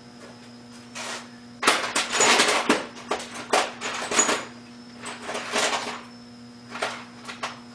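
Someone rummaging through small metal hardware for a washer: loose parts clattering and rattling in several bursts, with a few single clicks near the end.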